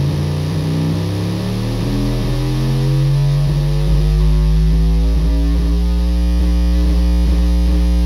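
Circuit-bent Meowsic cat toy keyboard playing a loud, distorted, glitchy drone: a steady low hum under stacked held tones, several of them slowly gliding upward in pitch as keys are held down.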